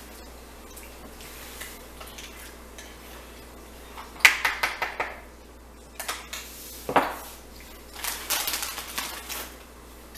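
Metal spoon scraping and clinking inside a glass jar of cheese dip as it scoops, in a few short bursts of quick clicks and scrapes.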